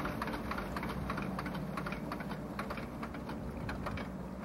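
A steady low engine hum with quick, irregular light clicks over it. The clicks thin out near the end.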